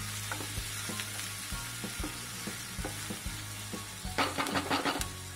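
Chopped onion and garlic sizzling in hot oil in a wok while a wooden spatula stirs them, with scattered small scrapes and a quick run of louder scraping strokes about four seconds in.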